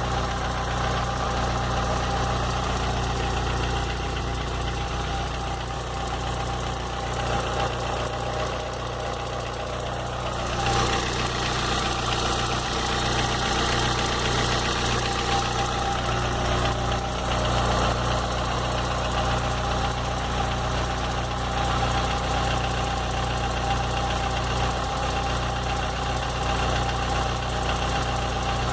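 Volkswagen Gol G4 engine running steadily at idle, a little louder from about ten seconds in. Its owner hears a strange noise in it that he cannot identify.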